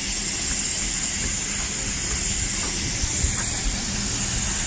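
Steam locomotive standing with a steady hiss of escaping steam over a low rumble.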